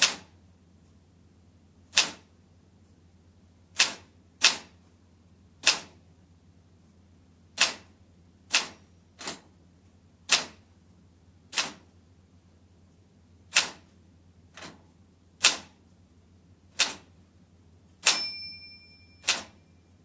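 Manual typewriter typed slowly with two fingers, heard from about four metres away: single key strikes clacking at uneven gaps of about a second, some fifteen in all. Near the end one strike is joined by a ringing tone lasting about a second, the typewriter's line-end margin bell.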